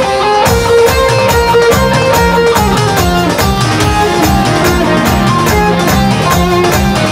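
Live band playing an instrumental passage: electric guitar and electric bass guitar over a steady, fast drum beat, with a melody that holds one long note and then moves on in shorter notes.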